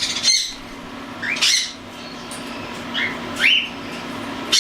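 Young hand-fed cockatiels, close to weaning, calling: a handful of short rising chirps with gaps between them, over a steady low hum.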